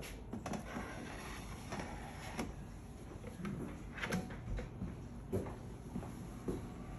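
Faint, scattered knocks and clicks of things being handled in a kitchen, about five of them spaced a second or two apart.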